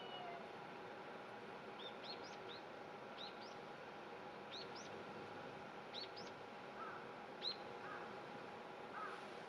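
Small birds chirping: short, sharply rising high notes, often in quick twos or threes, repeated every second or so against a steady background hiss.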